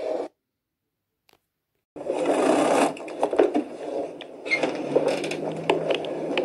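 About a second and a half of dead silence, then the rubbing, scraping and clicking of a phone being handled against its microphone, with a low steady hum coming in about five seconds in.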